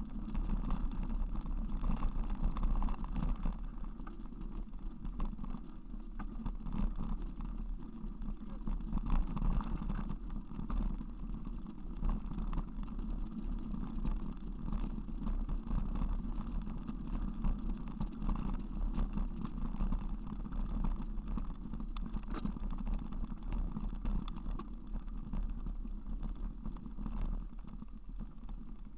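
Rumble and rattle of a mountain bike riding over a rough grass and dirt track, with wind buffeting the microphone and many small irregular knocks from the bumps.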